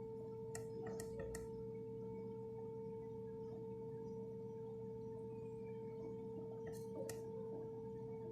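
A steady electronic tone that hums at one pitch without a break, with a few sharp clicks: three about a second in and two near the end.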